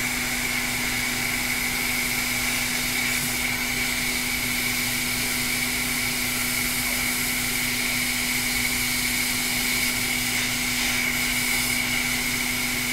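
Hot air rework gun blowing steadily while it heats a blown surface-mount fuse on a laptop logic board to desolder it: a constant rush of air with a steady high whine.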